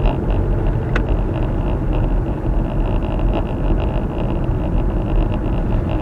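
Car driving noise picked up by a Viofo A119 V3 dash cam's built-in microphone, with a quick rattle several times a second from the camera vibrating in its mount, and one sharper click about a second in. The rattle reaches the microphone but is not heard inside the car.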